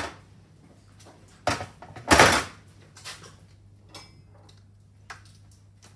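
Metal brake calipers handled on a workbench: a knock as one is set down in a steel tray, more knocks, and a louder scraping clatter about two seconds in, then lighter handling noises.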